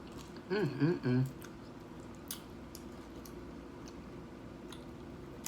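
A short hummed "mm-mm" with a rising and falling pitch from a woman eating, then a few faint sharp crunches and clicks of chewing tortilla-chip nachos.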